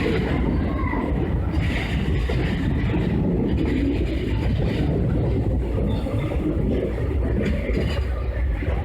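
Train running along the rails: a steady low rumble.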